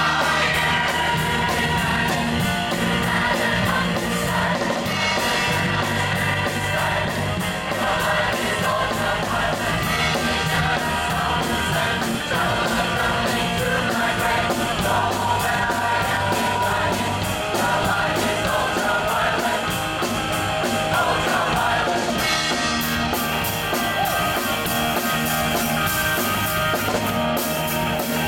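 A large choir singing with a live rock band of electric guitar and drum kit, playing to a steady beat.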